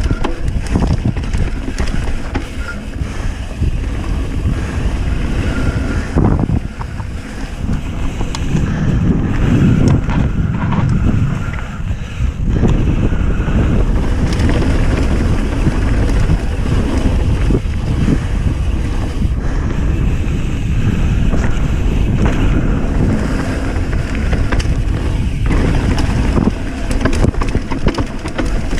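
Wind rushing over the ride camera's microphone while a mountain bike rolls fast down a dirt trail, with a steady low rumble from tyres and frame and frequent small knocks and rattles as it goes over bumps.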